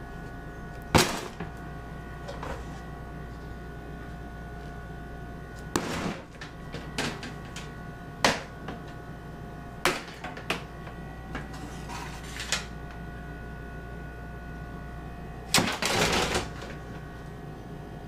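Removed car parts, a hood latch assembly and black plastic trim pieces, being dropped one at a time into a plastic trash can. There are about eight separate knocks and clatters, the loudest about a second in, and a longer burst of clattering near the end, over a steady hum.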